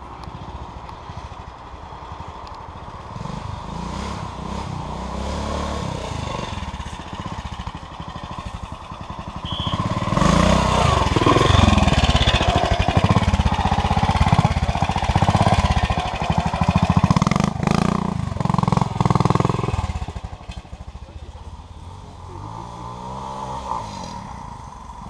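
Old trials motorcycle engine running at low revs, its revs rising and falling with the throttle. It gets much louder as the bike passes close by, from about ten seconds in, and drops away again after about twenty seconds.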